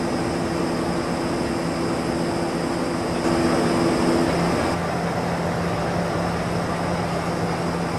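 Bus engine and road noise heard inside the cabin: a steady rumble with a droning hum, whose pitch shifts about four and a half seconds in.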